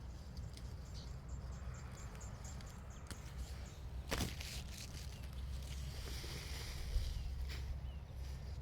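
Wind on the microphone outdoors: a steady low rumble. About a second in there is a quick run of a dozen short, high chirps, and about four seconds in a single sharp click.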